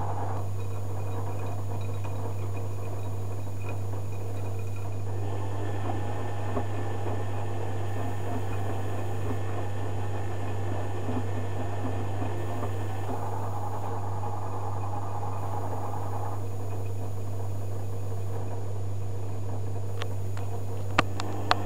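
Zanussi FJ1093 Jetsystem front-loading washing machine in the wash phase of a cotton cycle. Its motor turns the drum as the wet laundry tumbles and water sloshes, over a steady low hum. A couple of sharp clicks come near the end.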